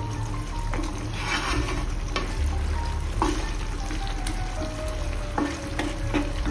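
Wooden spatula stirring chicken pickle gravy in hot oil in a nonstick kadai. The gravy sizzles, and the spatula scrapes and knocks against the pan about once a second.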